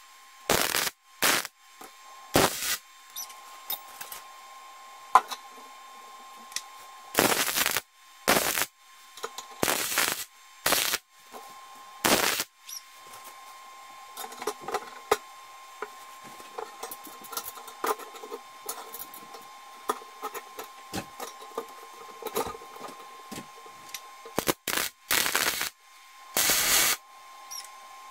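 Stick (arc) welder laying short tack welds on steel straps: about a dozen brief bursts of arc crackle, some close together near the start, a group in the middle and a few near the end. Between the bursts there are small ticks and a faint steady hum.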